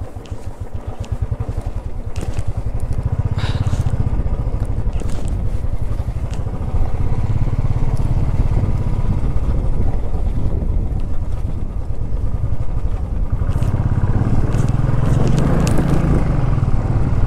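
Motorcycle engine running under way, a steady low pulsing exhaust beat that gets louder about halfway through and again near the end.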